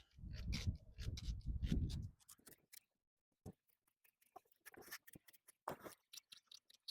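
Wooden gear knob being twisted by hand onto the gear lever, its nylon insert cutting its own thread: a close rubbing creak for about two seconds, then scattered small clicks.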